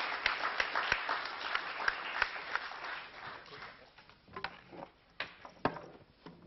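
Audience applauding, a dense patter of clapping that dies away about three to four seconds in, followed by a few scattered claps and knocks.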